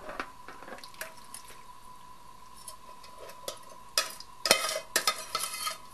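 A metal spoon scraping and clinking against a steel pot as thick curry sauce is scooped out of it. Mostly light ticks at first, then a burst of scrapes and clicks about four seconds in.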